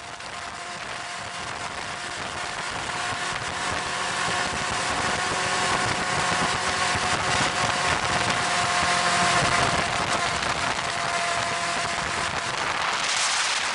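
Quad bike (ATV) engines running at a steady road speed, with wind rushing over the microphone. The noise grows louder over the first several seconds, then holds.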